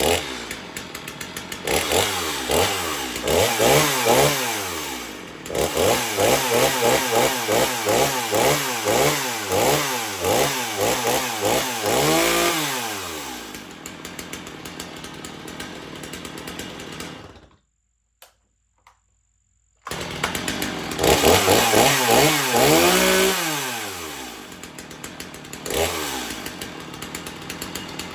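Stihl MS 250 chainsaw's 45cc two-stroke engine being blipped again and again from idle, its pitch rising and falling, to run a new chain around the bar and get it oiled without cutting. It cuts out for about two seconds past the middle, then comes back with a few more revs and settles to idle.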